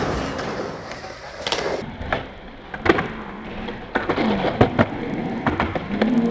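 Skateboard riding concrete ramps: urethane wheels rolling with a gritty rumble, and several sharp clacks as the board and trucks hit the ramp and land. Music comes back in near the end.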